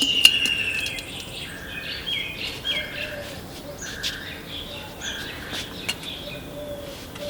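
Birds chirping and calling over and over, with a falling whistle in the first second, and a few sharp clicks.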